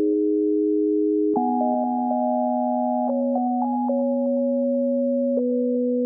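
Background music: soft synthesizer chords of held notes, the chord changing every second or two, with no drum beat.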